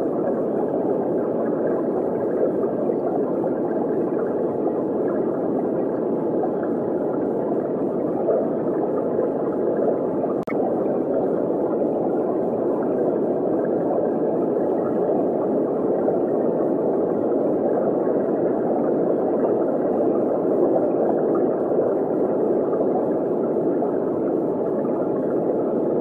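Steady, muffled underwater water ambience: an even wash of water noise with no tune in it, and one brief click about ten seconds in.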